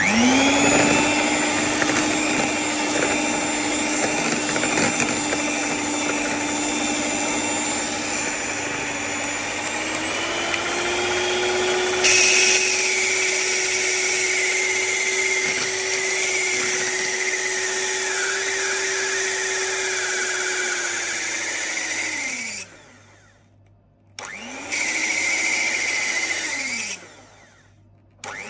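Electric hand mixer running, its motor whirring steadily as the beaters whip batter in a bowl. The motor spins up at the start, rises a step in pitch about ten seconds in as the speed goes up, then winds down and stops. It runs briefly again and starts once more near the end.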